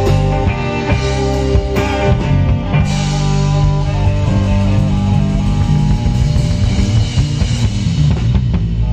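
Live rock band playing loud and steady: two electric guitars, electric bass and a drum kit with crashing cymbals.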